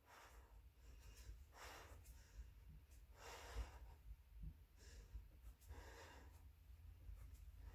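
A woman's faint breathing while she exercises in a plank doing hip dips, about one soft breath every second and a half, over a low steady hum.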